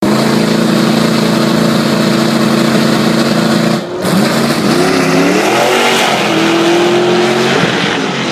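Old drag-racing pickup truck's V8 engine held at a steady high rev on the starting line, then about four seconds in it dips sharply and the truck launches, its pitch rising and wavering as it accelerates away, settling into a higher steady note near the end.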